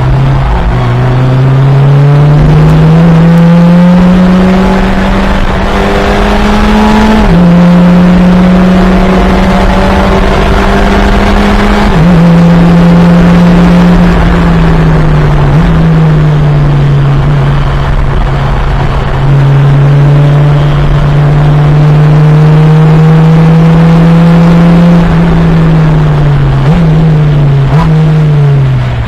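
FunCup race car's engine at racing speed, the pitch climbing through the gears with upshifts about 7 and 12 seconds in, easing off around the middle, then building again before lifting and downshifting with two quick rev blips near the end.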